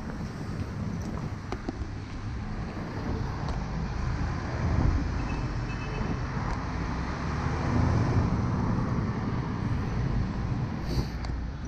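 City street traffic heard from the sidewalk: a steady low rumble of cars and buses driving past, swelling as vehicles go by about five seconds in and again around eight seconds.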